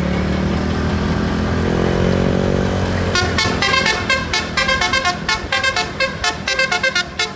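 Bus engine running, then about three seconds in a Basuri 'telolet' musical air horn plays a fast melody of short notes stepping up and down in pitch, several a second.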